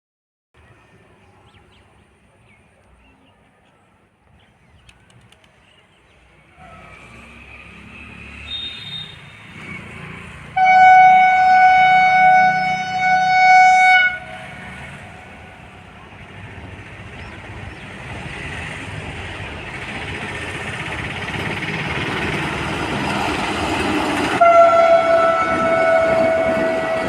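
Vande Bharat Express electric train approaching and passing. Its horn sounds in a long two-part blast about eleven seconds in, then the rumble of the train on the track grows steadily louder. The horn blows again near the end, dropping slightly in pitch.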